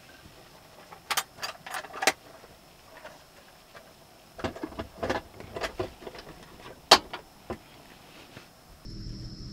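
Wooden table board being handled and fitted onto its mounting bracket: a string of sharp clicks and knocks of wood against the fittings, in two clusters, the loudest a single click near the seven-second mark.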